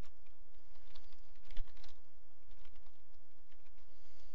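Typing on a computer keyboard: irregular key clicks, with a quick cluster of keystrokes about one and a half seconds in, over a steady low hum.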